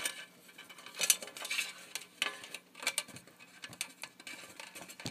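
Small metallic clicks and scrapes from wire being bent and hooked onto a tube-socket lug on a metal amplifier chassis, coming irregularly about twice a second.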